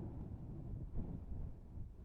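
Wind sound effect: a low, gusting rumble of wind that rises briefly about a second in.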